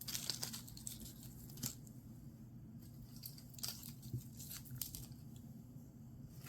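Soft crinkling and rustling of small plastic bags, with scattered light clicks, as twisted seed bead necklaces are handled and counted.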